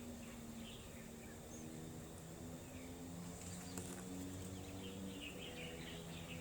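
Faint bird chirps, a cluster of short calls in the second half, over a low steady hum, with one soft click about four seconds in.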